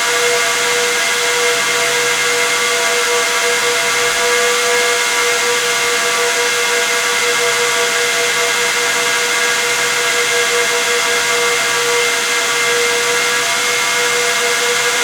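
Dell EMC PowerEdge XR12 server's six high-speed cooling fans running steadily: a loud rushing hiss with several whining tones over it, the strongest a mid-pitched whine, slowly beating against each other.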